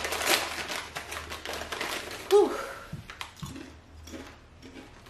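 Plastic snack bag of edamame snacks crinkling and rustling as it is pulled open, the crackling dense at first and thinning out after about three seconds. A brief vocal sound comes about two seconds in.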